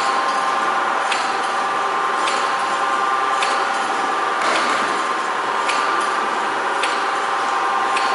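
CNC spring coiling machine running steadily as it feeds and coils stainless steel wire into rectangular compression springs, with a steady mechanical hum. A sharp click comes about once a second as each finished spring is cut off the wire.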